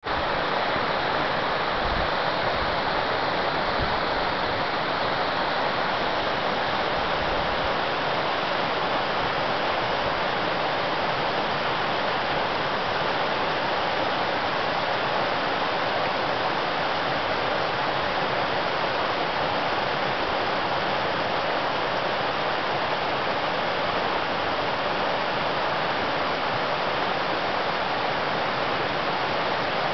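Shallow rocky mountain stream rushing over boulders in a small rapid: a steady, unbroken rush of water.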